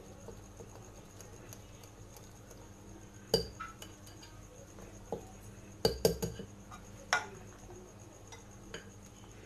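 A utensil clinking and knocking against a mixing bowl while batter is mixed: a few sharp clinks, with a quick cluster about six seconds in.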